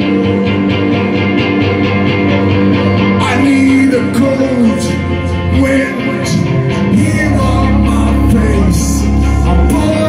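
Live rock band playing: electric guitars, bass and drums with a man singing lead. A heavy low bass note comes in about seven seconds in.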